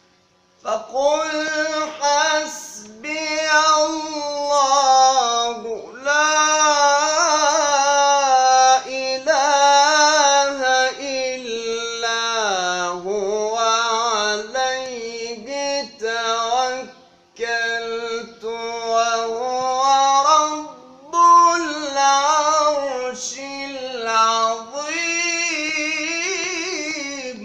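A young man's solo voice reciting the Quran in the melodic tajweed style, drawing out long, ornamented held notes with short pauses for breath.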